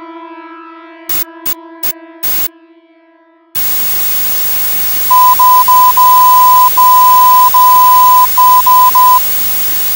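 A held musical note fades under four sharp clicks, then steady radio static bursts in suddenly. Over the static a single high beep tone keys three short, three long and three short pulses: the Morse SOS distress signal.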